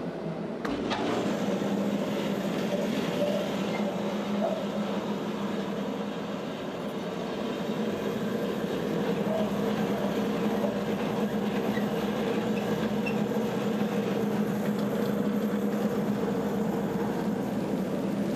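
Woodmaster 725 thickness planer running steadily together with its dust collector, with a steady hum and a wide hiss, as a cupped elm slab is fed through the cutterhead.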